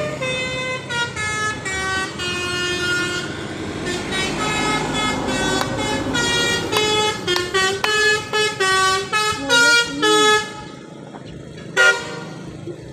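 Bus telolet horn (a Basuri multi-trumpet musical air horn) playing a tune of stepped notes, some short and some held, for about ten seconds. One more short blast comes near the end.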